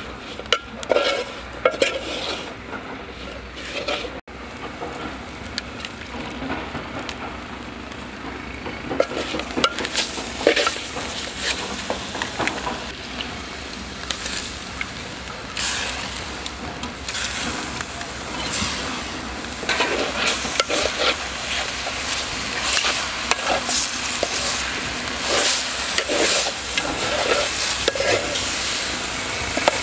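A metal spoon stirring and scraping a thick spice masala of shallots and chilli around a steel pot, then raw beef bone pieces being tipped in and mixed through it, with wet squelching and scraping against the pot's sides.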